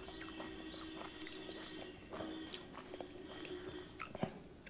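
Faint chewing and small mouth clicks of a person eating a mouthful of cooked veliparuthi pod stir-fry, over a faint steady hum.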